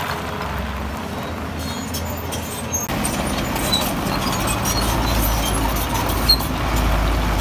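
Heavy diesel earthmoving machinery running steadily, with a sudden change in the sound about three seconds in and a deeper, stronger rumble from about five seconds on. Scattered faint clicks sit over the engine noise.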